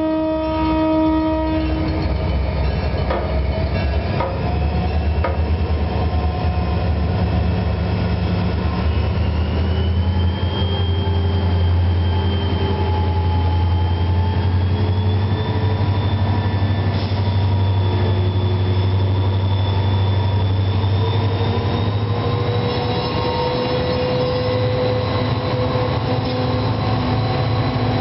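A freight train's GP40-3X diesel locomotives with slugs pass close by: the locomotive horn sounds a chord that cuts off about two seconds in, then the heavy, steady rumble of the engines and rolling train carries on, with thin whining tones drifting slowly upward in pitch over it.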